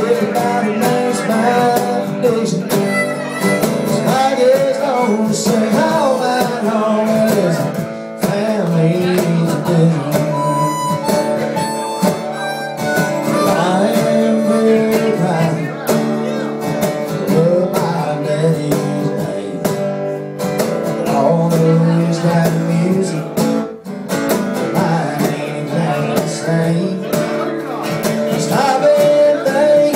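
Live acoustic band: a harmonica plays lead into a microphone, with long held and bending notes, over a strummed acoustic guitar and a cajon keeping the beat.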